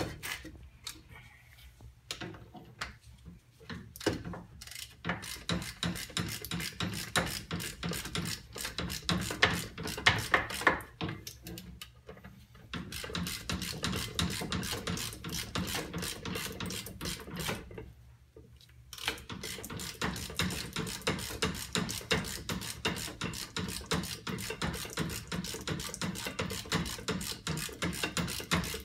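Hand ratchet wrench clicking in quick runs as it tightens the brake caliper bracket bolts, with sparser clicks at first and a short pause about two-thirds of the way through.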